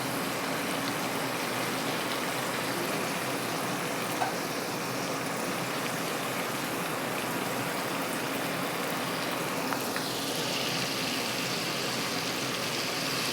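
Flour-coated chicken skin deep-frying in hot oil in a pan: a steady sizzle with a couple of small pops, turning hissier about ten seconds in.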